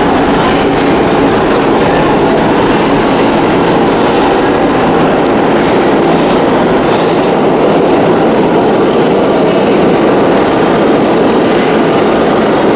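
New York City subway train running on the tracks close by, a loud steady rumble and clatter of wheels with a few faint clicks.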